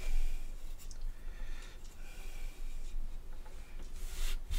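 Steel wool scrubbing a wooden rifle handguard: uneven scratchy rubbing strokes, louder scrapes just after the start and again about four seconds in, as paint residue is cleaned out of the wood's cutouts.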